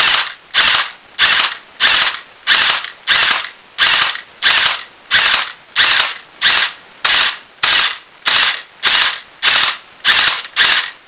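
Airsoft AEG gearbox firing short bursts, about two a second, each trigger pull cut to a brief burst by a Burst Wizard King Kong MOSFET burst controller.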